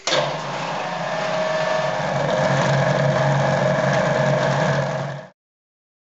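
Food processor motor running steadily as it mixes a bread dough of semolina, flour, water, oil and yeast; it starts suddenly and cuts off abruptly about five seconds in.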